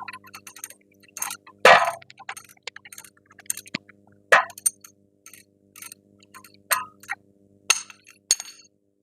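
Metal hand tools clinking and clicking irregularly against steel as a wrench and socket are worked on a strut's mounting bolts, with about a dozen sharp metallic clinks. The loudest clink comes about two seconds in.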